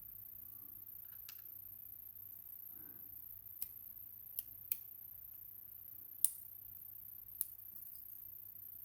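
About six small sharp clicks spread over several seconds, the loudest about six seconds in: metal parts of an Evva 3KS lock cylinder and tweezers being handled as the lock is taken apart.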